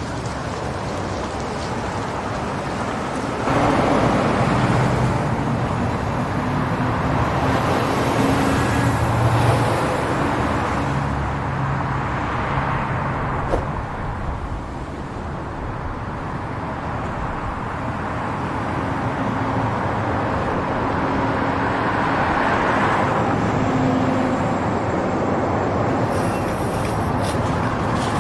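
City street traffic ambience: cars and buses pass one after another over a steady engine hum, swelling as each goes by, with a single sharp click about halfway through.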